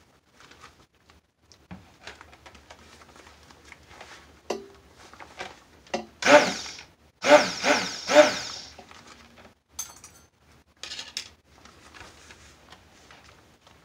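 Stick blender run in three short bursts about six seconds into the mix of oils and lye solution for soap: a motor whine with liquid churning. Light knocks and handling of the plastic bowl come before and between.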